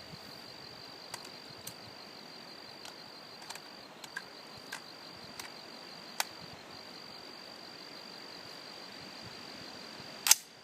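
Steady high-pitched insect trill from crickets, with a few faint clicks, and one sharp loud knock near the end.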